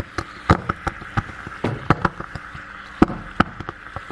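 Calcium carbide reacting with melting ice in a glass beaker while the acetylene gas burns above it. Irregular sharp crackles and pops come a few a second over a steady hiss.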